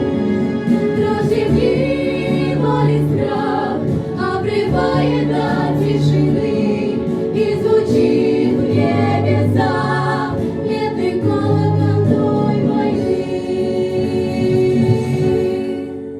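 Vocal ensemble singing in choir-like harmony over a recorded instrumental backing track, with sustained chords and bass under the voices; the music starts to fade out at the very end.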